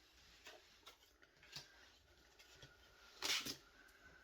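Tarot cards being handled: a few faint light taps and one brief rustle about three seconds in.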